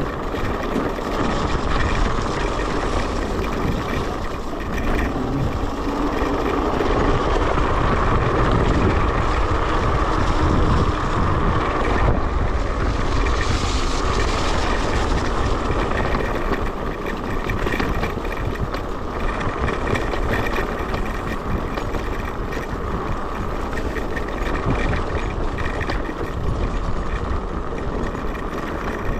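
Electric scooter ridden over a rough, muddy off-road track: a continuous rumble of tyres and wind on the microphone, with a steady whine running through it.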